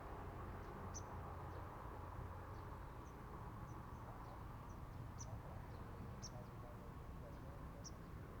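Sunbird giving short, high, thin chip calls at irregular intervals, several in a row, over a steady low background rumble.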